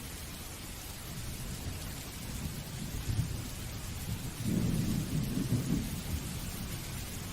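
Steady rain hiss with a low rumble of thunder that swells about four and a half seconds in and fades again by six.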